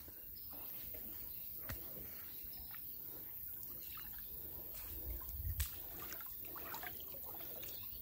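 Faint sloshing and trickling of shallow floodwater as a person wades through it, with a slightly louder swirl of water about five seconds in.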